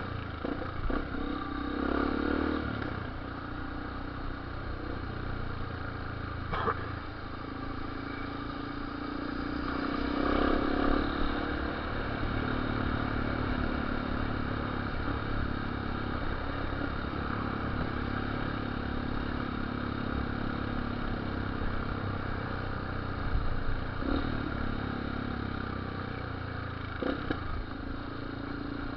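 Yamaha Lander single-cylinder motorcycle engine running under way, its revs rising a little around two seconds in and again around ten to eleven seconds in. There is one sharp pop about seven seconds in.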